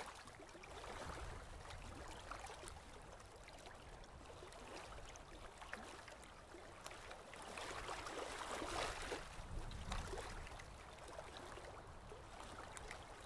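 Small waves washing onto a sandy beach: a soft, even rush of surf that swells about eight to ten seconds in.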